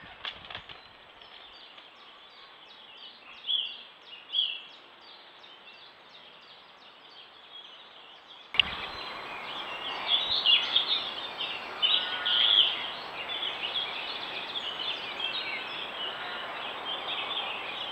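Songbirds singing in a dawn chorus, many short chirps and phrases overlapping. About halfway through, the sound cuts abruptly to a louder, busier chorus with a faint steady high whine under it.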